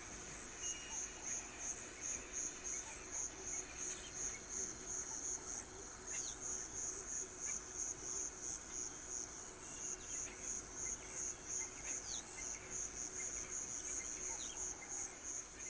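Insects calling together: a high, even trill pulsing about five times a second over a steadier, higher buzz, with a few faint short chirps.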